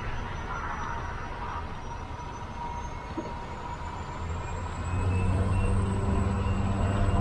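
Cabin noise of a Pilatus bush plane's turboprop engine and propeller on approach to land: a steady rumble with a faint high whine, growing louder about five seconds in.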